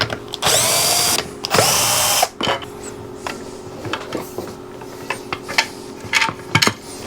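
Cordless drill/driver run in two short bursts, its motor spinning up and winding down each time, as when the chuck is opened and closed for a bit change. Light clicks and tool handling follow over a faint steady hum.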